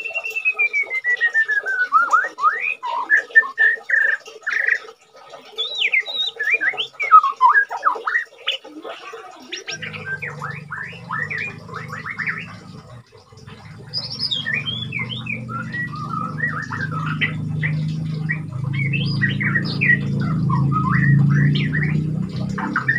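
White-rumped shama (murai batu) singing a varied song of clear whistles and quick trills, starting with a long falling whistle; the bird keeps singing while in moult. A low steady hum comes in about halfway through.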